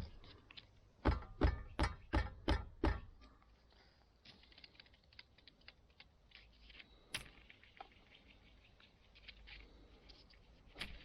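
Six sharp knocks in quick succession, then a long run of light, irregular clicks and crackles.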